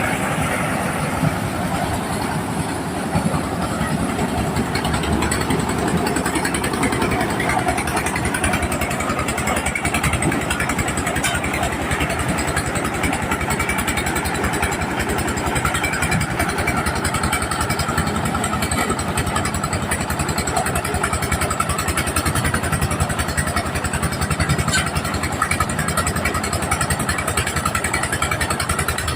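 Engine-driven mobile corn sheller running steadily, its engine giving a rapid, even beat.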